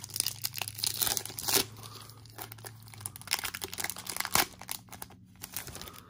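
Crinkling and rustling from a foil trading-card pack wrapper and cards being handled and flipped through, with a couple of sharper crackles. A low hum runs underneath and stops about halfway through.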